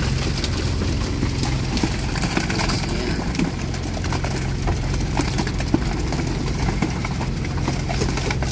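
An engine idling steadily aboard a fishing boat, with irregular knocks and clatter over it.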